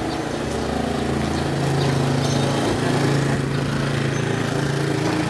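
A small petrol engine running steadily, a little louder around the middle.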